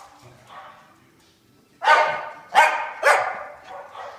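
A dog barking three times in quick succession while playing, the barks starting about two seconds in after a quieter stretch.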